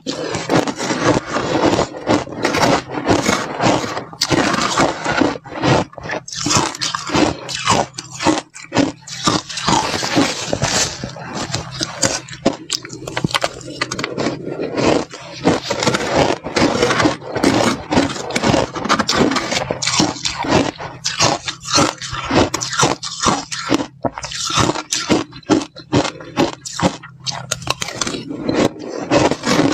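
Slushy ice being chewed close to the microphone: a dense, continuous run of crisp, irregular crunches.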